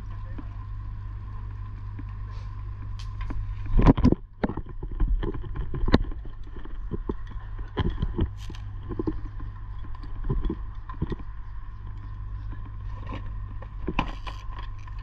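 Irregular clanks, knocks and scrapes of metal fittings and tools being handled on an overhead conductor, loudest about four seconds in, over a steady low hum.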